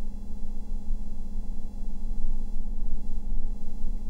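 Steady low hum with a strong, uneven rumble underneath.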